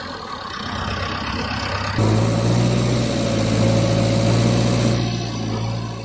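Vehicle engine running steadily at idle. About two seconds in, a louder steady engine sound cuts in abruptly and eases back near the end.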